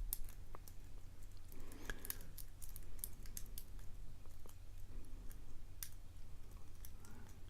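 Lock pick and tension wrench working the pin stack of a challenge padlock, reaching around its warding: faint, irregular small metallic clicks and scrapes as pins are lifted and set.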